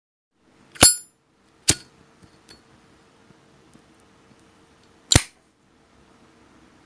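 A Zippo lighter's metal lid clicking: three sharp metallic clicks, the first with a brief ringing ping, the second just under a second later, and the third about three and a half seconds after that.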